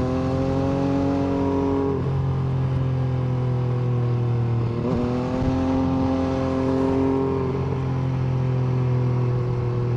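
MV Agusta F3 800's three-cylinder engine running at a steady cruising pitch while riding, with a brief break and shift in the note about five seconds in.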